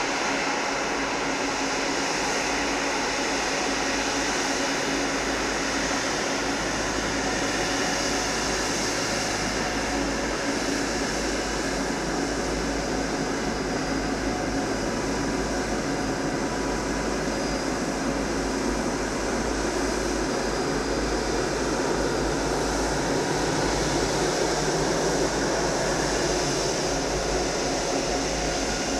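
Boeing 777-300's Rolls-Royce Trent 800 jet engines running at taxi power as the airliner rolls past: a steady rushing hum with a constant whine, holding an even level throughout.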